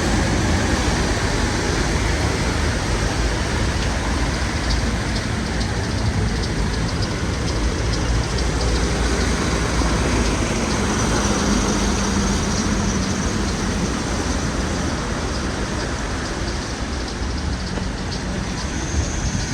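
Steady road traffic noise, with an engine hum coming through for a few seconds about ten seconds in.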